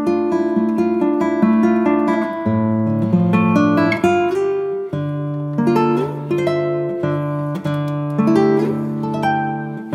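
Background acoustic guitar music: a steady run of plucked notes, with lower bass notes held under them.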